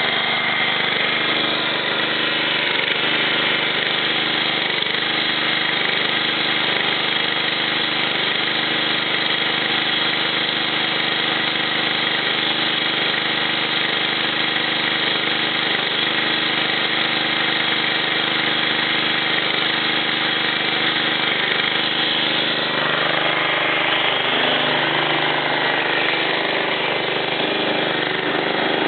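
John Deere JX85 self-propelled mower's engine running steadily just after a cold start, having sat unused for about a month. Its note changes about 23 seconds in.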